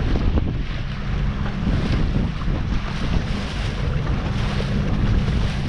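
Wind buffeting the microphone on a moving watercraft, over the steady low drone of its engine and the rush of water past the hull.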